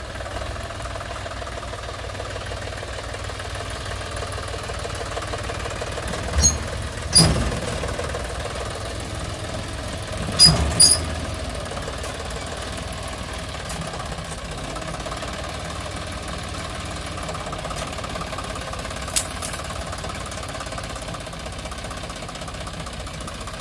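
John Deere 5050E tractor's three-cylinder diesel engine running steadily while it tows a paddy thresher over rough, broken ground. A few loud knocks stand out: two pairs about 6 to 11 seconds in and a single one later.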